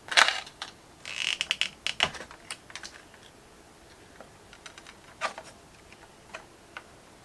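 Plastic packaging and small plastic accessory parts being handled: a sharp click, then a short crinkling rustle about a second in, followed by scattered light clicks.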